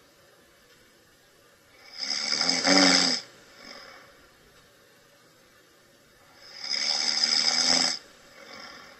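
A sleeping person snoring: two loud, rasping snores about four and a half seconds apart, each followed by a softer breath out.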